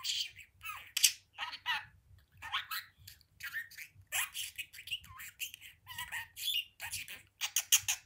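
Pet budgerigar chattering: a steady run of short, quick, scratchy squawks and chirps, several a second.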